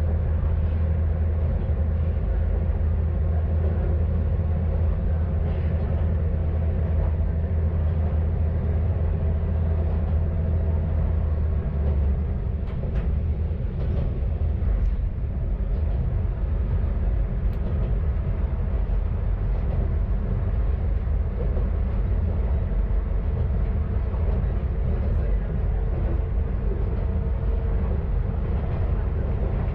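KiHa 532 diesel railcar running, a steady low engine drone with rail noise, and a few faint clicks. The drone changes in pitch about twelve seconds in.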